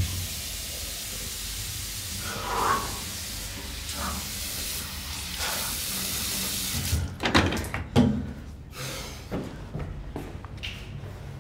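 A steady hiss from an unseen source for about seven seconds, which then stops. A few sharp knocks and thumps follow.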